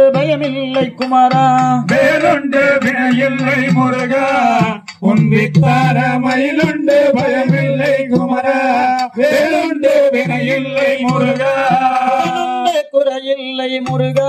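Male voice singing a Tamil valli kummi folk song in long phrases, over a steady sustained instrumental drone.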